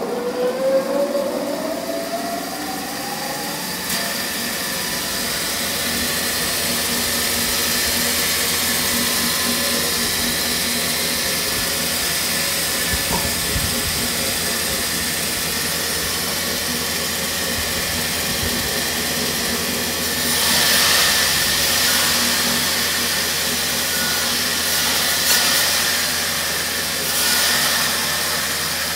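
Large vertical band saw coming up to speed, its hum rising in pitch over the first few seconds and then running steadily with a hiss. About twenty seconds in, and twice more near the end, the blade cuts through short wooden pieces fed through a roller-guided template, each cut a louder rasp of a second or two.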